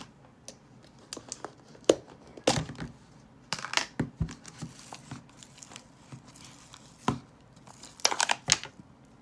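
A plastic slime container being handled and opened: scattered crinkling and clicking, with a few louder crackles, while slime that is hard to get out is worked loose.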